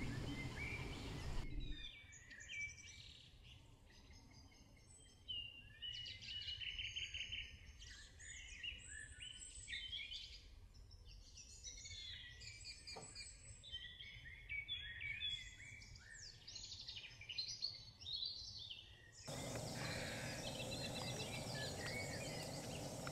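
Many songbirds singing together, dense overlapping chirps, trills and repeated notes. After about nineteen seconds it cuts to a steady outdoor background hiss.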